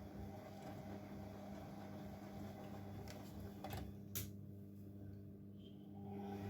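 Bosch Maxx WFL 248Y washing machine running a 60 °C wash: a steady low hum, with a few sharp clicks about three to four seconds in, after which the hiss in the background drops away for a couple of seconds.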